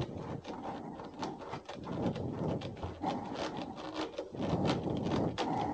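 PVC discharge pipe being screwed by hand into a water heater's temperature-and-pressure relief valve, its taped plastic threads rubbing and clicking irregularly as it turns.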